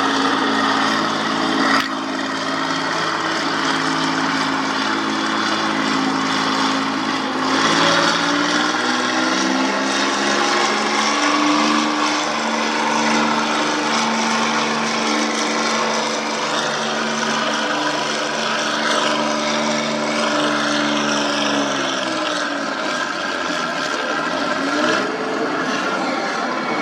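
Farm tractor engine running hard under load, pulling the weight sled. Its pitch shifts once about a third of the way through, holds steady, then falls away near the end as the pull finishes.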